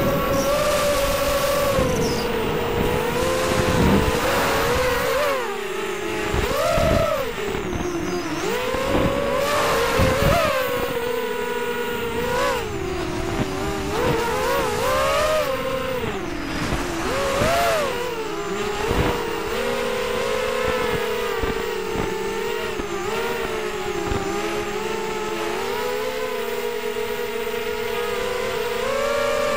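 ZMR250 racing quadcopter's four brushless motors and propellers whining, heard from the onboard camera. The pitch swoops up and down again and again as the motor speed changes, with quick rises near 7, 10, 13, 16 and 18 seconds in.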